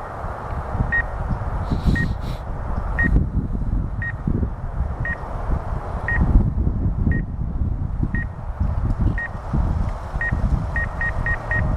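DJI Mavic Air 2 obstacle-avoidance warning beeping from the flight app: short high beeps about once a second, quickening to about three a second near the end as the drone closes on tree branches. Under the beeps runs a loud, uneven low rumbling noise.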